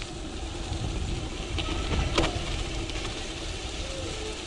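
Gravel bike rolling down a dirt trail: a steady rumble of tyres and wind on the action camera's microphone, with a few sharp clicks and one louder knock about two seconds in as the bike jolts over the ground.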